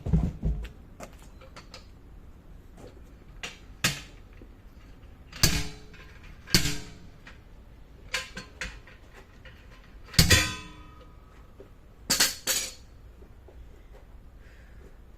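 Irregular metal clanks and knocks, about nine in all, as tools or metal parts are set down or struck. Several ring briefly, the loudest about ten seconds in.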